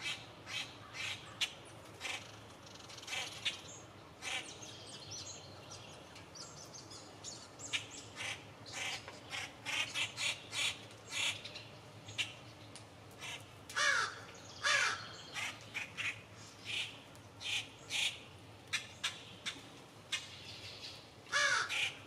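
Blue jays calling: many short, harsh calls in quick succession, coming thicker after the first few seconds, with a few longer calls that slide down in pitch around the middle and again near the end.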